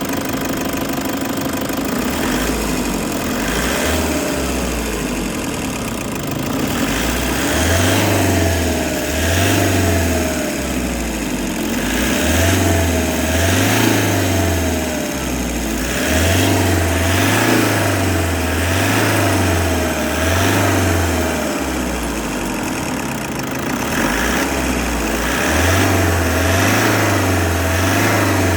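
Toyota HiAce engine running at idle while it is checked for abnormal noise. From about seven seconds in, its rumble swells and eases in a repeating pattern roughly once a second.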